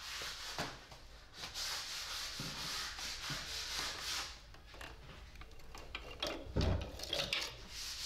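Head gasket being slid down over the cylinder-head studs onto a John Deere B's two-cylinder engine block, rubbing and scraping with light clicks, and a dull thump about six and a half seconds in.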